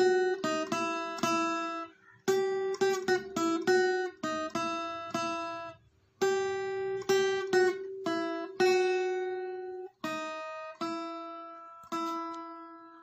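Acoustic guitar music: phrases of plucked notes, each ringing and fading, with short pauses about every four seconds. The last phrase dies away near the end.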